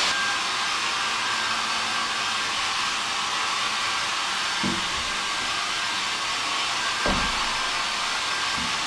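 Small handheld hair dryer blowing steadily, with a couple of brief low bumps partway through.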